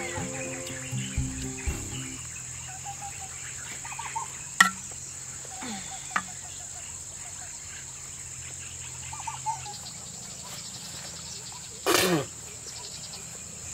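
Insects chirring steadily in a high, even drone. About twelve seconds in, a short loud splash of water flung off freshly rinsed hands.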